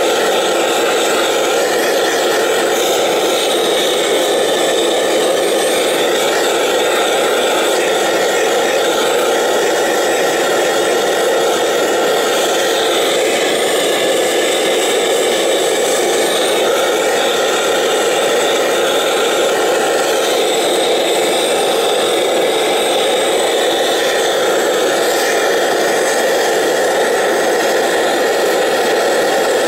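Gas blowtorch flame burning with a steady rushing noise while silver-soldering small brass parts.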